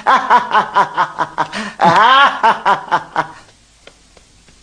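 A man laughing in a rapid string of ha-ha-ha pulses, about five a second, breaking into a rising, squealing whoop about two seconds in before the laughter stops about three and a half seconds in.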